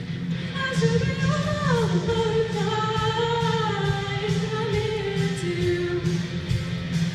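A solo singer's voice carrying a pop-rock melody over instrumental accompaniment with a steady drum beat.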